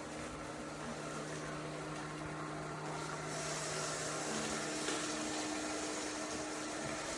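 A small motor and fan running steadily, humming under a hiss that grows brighter a little past three seconds in.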